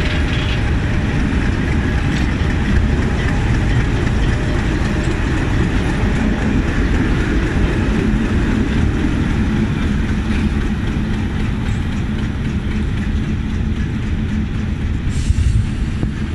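Diesel locomotive engine running close by, a loud steady rumble with a low hum, along with the general noise of the train.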